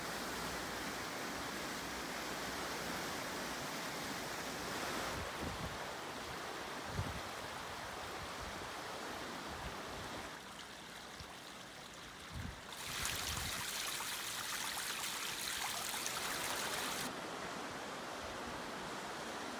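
Steady rush of a river in flood, its fast current running high over its banks, the hiss of the water brightening for a few seconds in the second half. A few short low thumps come and go.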